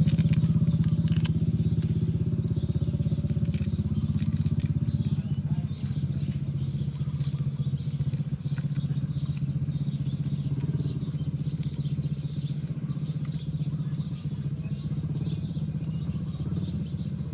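An engine running steadily, a low even drone, with light snapping and tearing of fresh bamboo shoots being peeled by hand.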